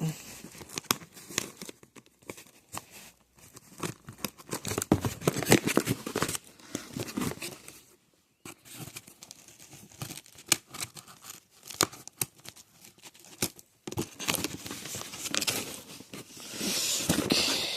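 A parcel's packaging being torn and crinkled open by hand: irregular ripping and rustling with many small clicks, pausing briefly about halfway through.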